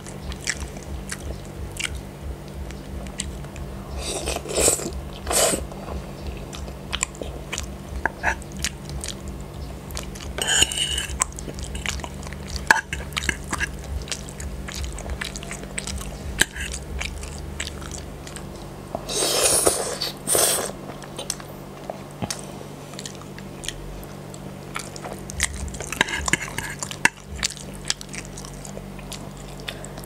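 Close-miked wet chewing of spaghetti in tomato sauce with sausage, with many small clicks from the metal fork and spoon against the plate. A few louder mouth noises lasting a second or two break in now and then.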